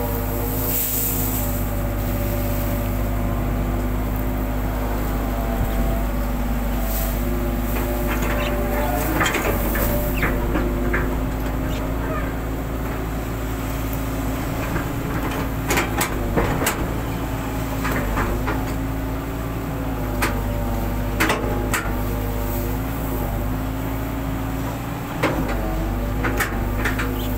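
Hitachi long-reach excavator's diesel engine and hydraulics running steadily under load as the boom swings and the bucket digs, with short knocks and clanks of the bucket and linkage now and then, more often in the second half.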